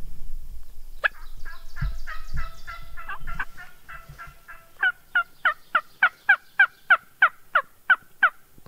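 A long series of turkey calls: a rapid, jumbled string of notes, then about a dozen loud, evenly spaced yelps, roughly three a second, that stop sharply near the end.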